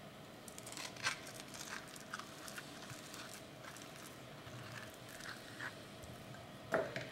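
Metal spoon scooping ripe avocado flesh out of its skin: soft wet scrapes and small clicks, with a louder knock near the end.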